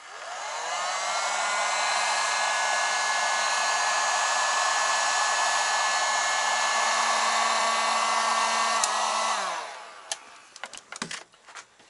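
Electric heat gun blowing hot air onto a piston to expand it for a tight gudgeon pin: its fan spins up at the start, runs steadily, and after a click about nine seconds in winds down.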